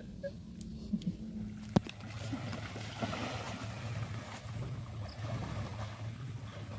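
A sharp click near two seconds in, then a steady wash of splashing water as a person swims through a river, over a low steady hum.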